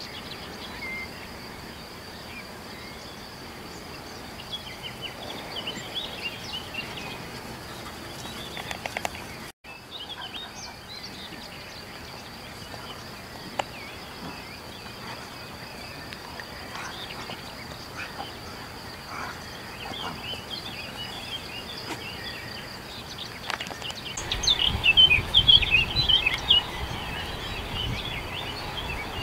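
Songbirds chirping and singing in open countryside over a steady high hiss, with a denser, louder burst of bird song near the end. A low wind rumble on the microphone comes in near the end, and the sound drops out briefly about ten seconds in.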